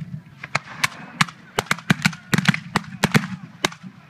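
Black-powder muskets fired with blank charges by a line of Civil War reenactors in a ragged, rolling volley: about fifteen sharp shots over four seconds, unevenly spaced and overlapping at times.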